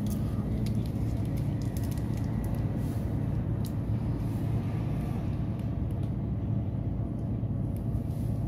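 City bus engine and drivetrain running as a steady low rumble, heard from inside the passenger cabin, with a few faint clicks in the first half.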